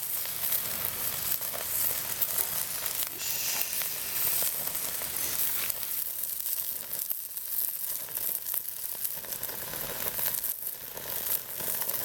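Skewered chicken skin sizzling on a grill grate over charcoal, a steady sizzle sprinkled with small crackles.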